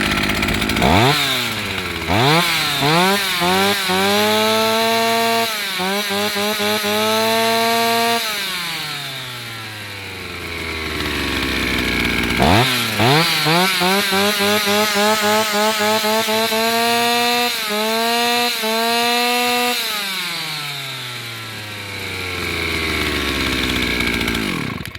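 Stihl 028 AV two-stroke chainsaw running on its first run after repair: twice it is revved up in a run of quick throttle blips and then falls back to idle. The engine is shut off at the very end.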